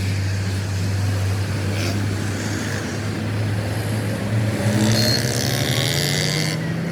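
Truck's diesel engine running steadily, its pitch climbing gradually from about four seconds in as it speeds up.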